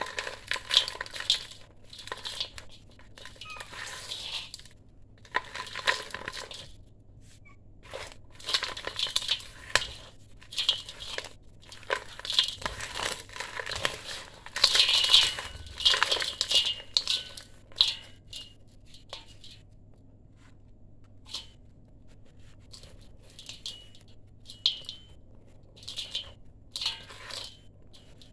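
Dry sand-cement mix crumbled by hand and falling into a stainless steel bowl: irregular gritty crunches and the patter of grains on the steel, which now and then rings faintly. The crunching comes in bursts, busiest in the first two-thirds and sparser near the end.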